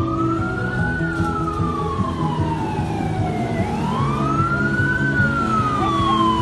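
Police siren wailing: the pitch rises quickly, then sinks slowly, about twice. A steady low hum lies underneath.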